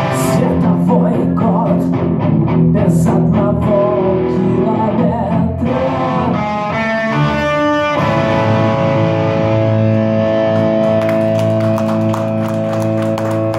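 Instrumental rock music led by guitar, without vocals. From about eight seconds in, one long chord is held to the close.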